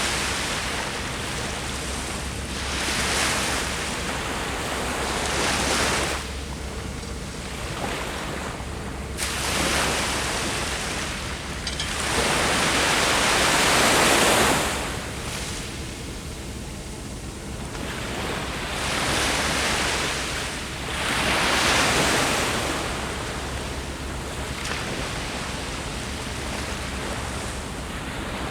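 Ocean surf: waves breaking and washing up the beach, the rush swelling and falling back every few seconds. The longest, loudest surge comes about halfway through.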